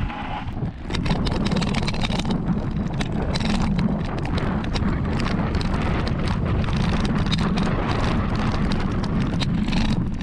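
Mountain bike riding fast down a dirt and gravel trail, starting about a second in: the knobby tyre crunching over the ground amid constant rattling and clattering of the bike, with wind buffeting the microphone.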